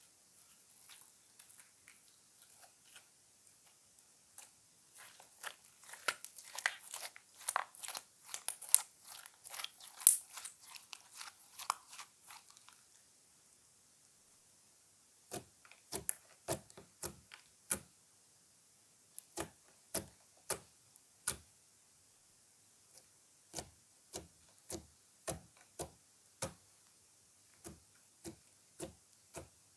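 Slime being squished and pressed by hand, giving off dense crackling and small popping for about the first thirteen seconds. After a short pause come separate sharp pops, about one or two a second, as air pockets in the slime burst.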